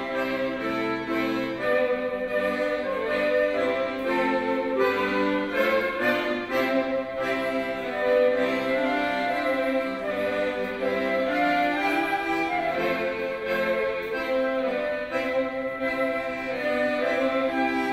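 Live trio of violin, flute and piano accordion playing a melodic tune together, with sustained bowed and reed notes.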